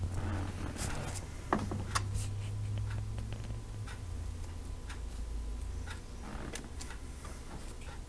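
Light ticks and small clicks at uneven intervals, one louder click about a second and a half in, over a low steady hum that drops away around four seconds in.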